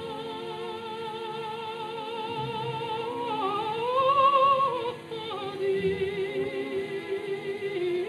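Operatic singing: a single voice holds long notes with a wide vibrato over soft low accompaniment, swelling and rising in pitch about halfway through, then settling onto a lower held note.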